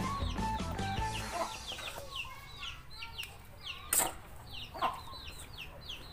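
Chickens calling close by: many short, high, falling calls several times a second. Background music fades out about a second in, and a single sharp knock comes about four seconds in.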